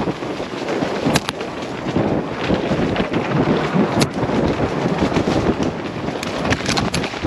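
Wind rushing over the microphone together with the clatter of an enduro mountain bike descending a rough dirt trail at speed: tyres on dirt and leaves, the bike rattling, with sharp knocks from hits, about a second in, around four seconds, and several more near the end.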